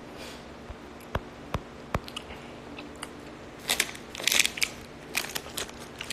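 A person biting and chewing a crunchy snack close to a phone's microphone: a few sharp clicks first, then crunching from a little over halfway in.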